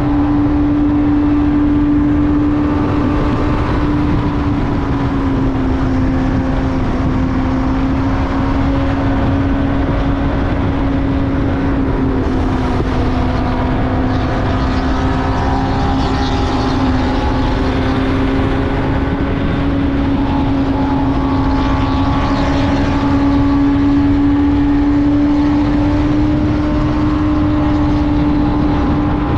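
Benelli TNT600i inline-four motorcycle engine at steady cruising revs, its pitch easing down slightly about five seconds in and edging back up later, with heavy wind rumble on the microphone.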